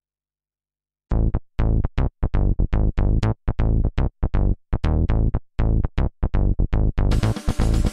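Electronic background music: after about a second of silence, a quick run of short, staccato synthesizer notes over a strong bass, filling out with a cymbal-like wash near the end.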